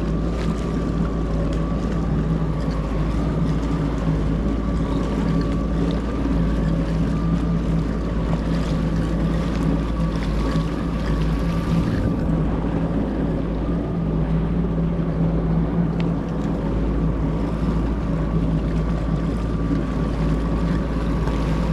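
Personal watercraft (jet ski) engine running steadily at low speed, a constant hum with no change in pitch.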